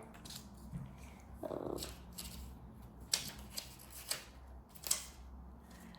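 Picture cards being handled and set down on a table: light rustling with a few soft taps.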